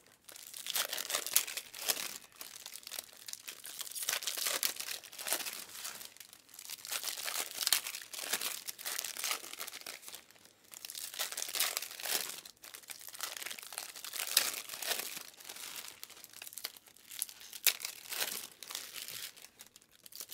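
Foil wrappers of Bowman Chrome trading-card packs being torn open and crinkled, one pack after another, in repeated bursts of crackling with brief pauses between them.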